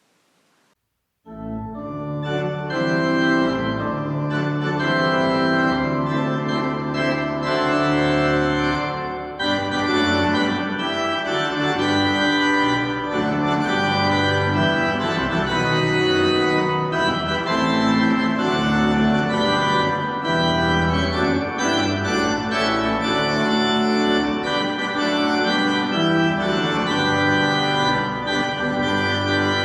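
Church organ starting a closing voluntary about a second in, after a brief silence, then playing full sustained chords.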